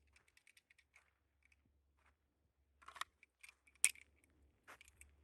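Small metallic clicks and rattles of a pistol magazine being handled, whose spring is stuck, likely from sand. There is a sharper cluster of clicks about three seconds in and a single sharp click near four seconds.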